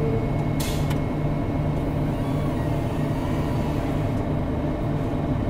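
Combine harvester running steadily, heard from inside the cab: a constant low engine hum, with a brief hiss less than a second in.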